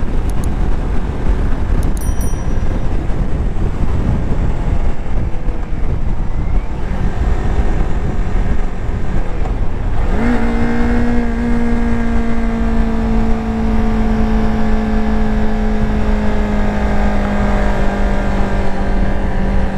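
Kawasaki Ninja 400 parallel-twin engine heard while riding, under heavy wind rush. About halfway through the engine note rises and settles into a steady pitch, easing slightly lower towards the end.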